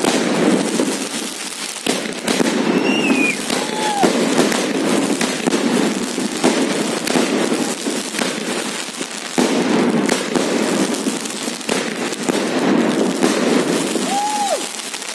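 Aerial fireworks going off in a continuous barrage of rapid pops and crackles.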